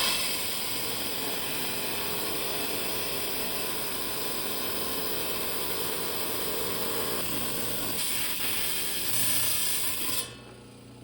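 10-inch Hi-tech Diamond lapidary slab saw's diamond blade cutting through a Lake Superior agate: a steady grinding hiss that cuts off abruptly near the end.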